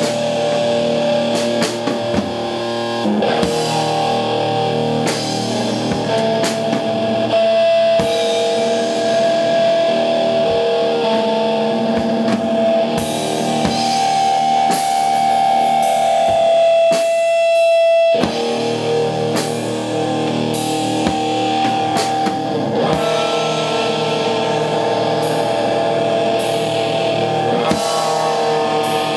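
Live rock duo of distorted electric guitar and drum kit playing an instrumental passage. About 17 seconds in the drums and low end drop out briefly, leaving a few held high notes, then the band comes back in together.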